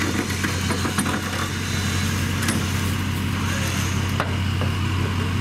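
Flatbed tow truck's engine running steadily at idle, a constant low hum, with a couple of sharp clicks over it.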